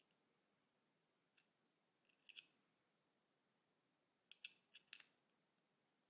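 Faint, sharp clicks of small steel parts handled in near silence: pins being fitted into an MG42 trigger grip during reassembly. There is a single click, then a pair, then a quick run of four or five near the end.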